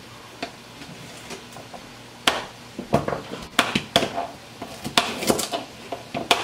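Two knives chopping carrots on thin plastic cutting mats over a stone counter: irregular sharp taps of the blades hitting the boards, sparse at first and coming thick and fast from about two seconds in.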